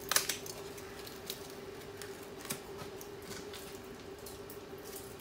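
An Oxo stock cube being crumbled by hand, making a short crackle just after the start, then a few faint clicks. A steady hum runs underneath.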